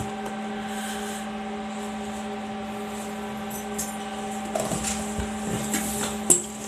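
Packing materials of a printer's box being handled: rustling and small clicks starting a little past halfway, with one sharp knock near the end. Under it all runs a steady electrical hum.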